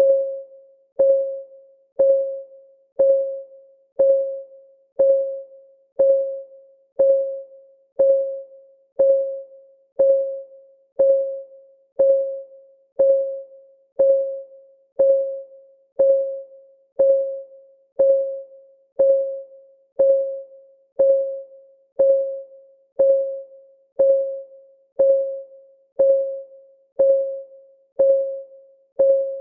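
Countdown timer's clock-ticking sound effect: one tick every second, each a short pitched click that rings briefly and fades, every tick at the same pitch.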